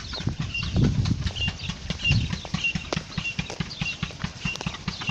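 Birds calling, one short high note repeated about every two-thirds of a second, over a steady run of clicks and taps.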